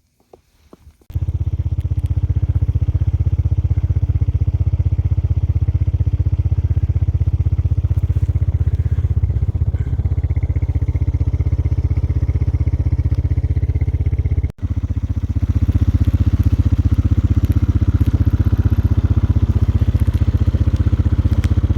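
A vehicle engine running steadily close to the microphone. It starts about a second in, cuts out for an instant about two-thirds through, then carries on.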